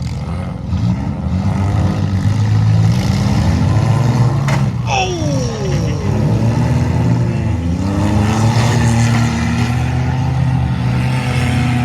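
Demolition derby car engines running and revving, with one sharp crash of metal on metal about four and a half seconds in, followed by a brief high squeal.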